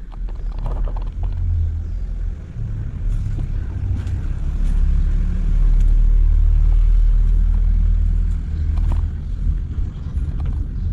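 Heavy, uneven low rumble on the camera's microphone, swelling loudest in the middle, with a few faint clicks.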